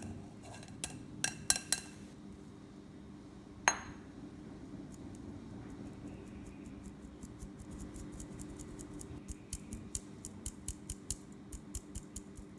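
Fine-mesh metal sieve clinking against a glass mixing bowl while flour is sifted through it: a few clinks, one sharp ringing knock about four seconds in, then a run of quick light taps, about four a second, as the sieve is shaken and tapped.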